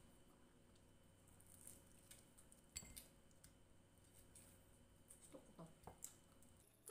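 Near silence, with faint clicks and mouth sounds of fried chicken and rice being eaten by hand, and one sharper click about three seconds in.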